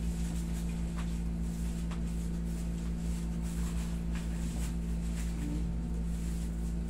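Steady low hum of a room air conditioner, with a few faint ticks.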